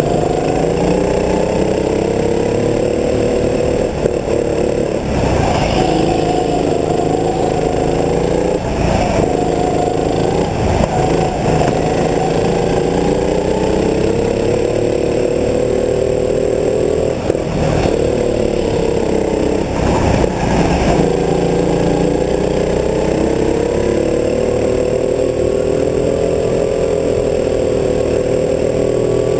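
Rental go-kart's small engine running hard through a lap, its pitch sagging and climbing again several times as the throttle is lifted for corners and opened on the straights.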